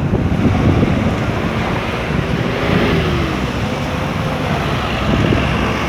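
Wind buffeting the microphone, a loud steady rumble with no separate events.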